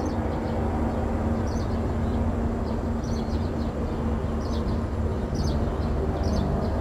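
Cement mixer truck's diesel engine idling steadily, a low even hum. Short high bird chirps come over it about once a second.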